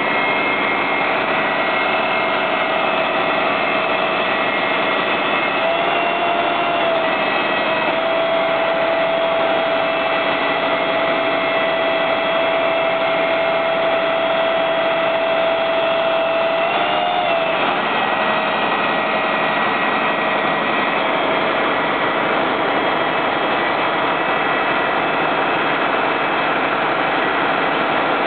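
Fire engines' engines and pumps running hard to supply the hose lines, a loud, steady mechanical noise. A whine steps up slightly about six seconds in, holds, and fades after about seventeen seconds.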